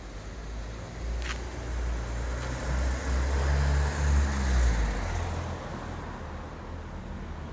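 A vehicle engine giving a low rumble that swells, peaks about four seconds in with its pitch rising and falling, then settles back. A short sharp click comes about a second in.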